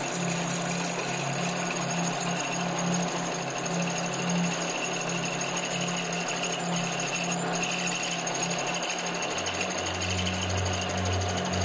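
Milling machine end mill cutting a steel workpiece: a steady, rough chattering cutting noise over the hum of the machine. A deeper hum comes in about nine seconds in.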